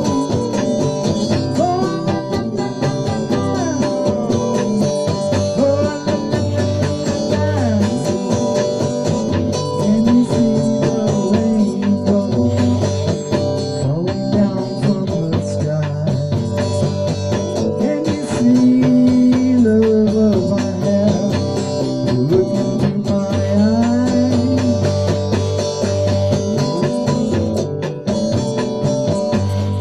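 Amplified electric guitar playing an instrumental passage, mixing held notes with notes that slide up and down in pitch.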